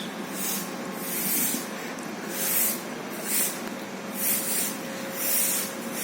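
Repeated surges of high hissing noise, about one a second, over a steady background hiss.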